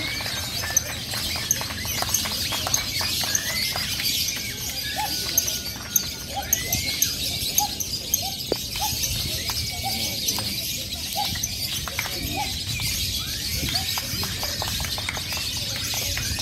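Many lovebirds calling at once on a contest ground, a dense high chattering twitter with scattered sharp clicks, and people's voices mixed in.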